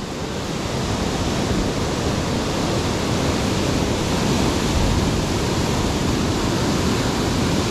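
Ocean surf breaking and washing in as a steady rush of white water against a rocky shoreline.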